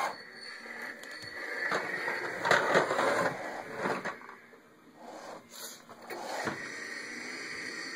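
Irregular scraping and bumping as a household vacuum cleaner is handled and pushed about with its motor off, louder in a few short bouts.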